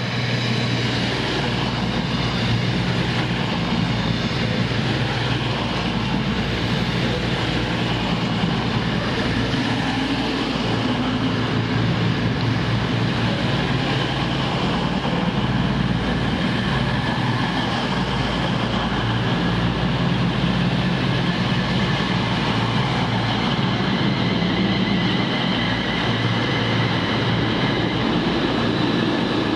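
Virgin Class 221 Voyager diesel-electric train running through the station, a steady hum from its underfloor diesel engines over rail and wheel noise. Near the end a London Midland Class 350 electric unit passes on another track.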